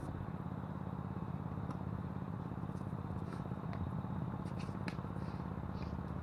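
Gusting wind buffets the microphone in a steady low rumble, with several faint sharp knocks of a doubles tennis rally: rackets striking the ball and footfalls on the hard court.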